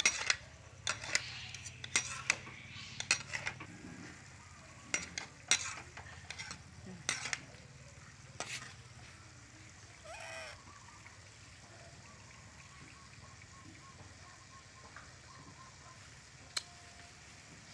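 Metal spatula and spoon clanking and scraping against a metal wok as green vegetables are stirred, in sharp irregular strikes for about the first nine seconds, then much quieter.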